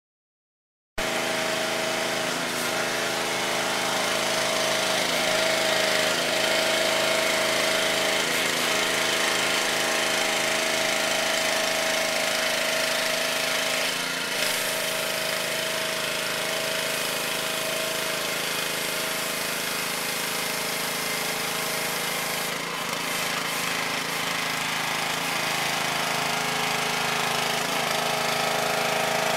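Pressure washer running steadily, its motor and pump droning under the hiss of the spray on a paver patio, starting about a second in.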